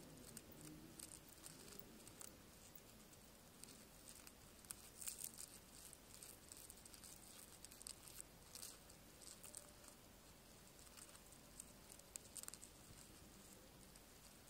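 Faint, irregular scratching and pattering of sand and grit as a beetle digs into the ground, coming in short clusters of tiny ticks.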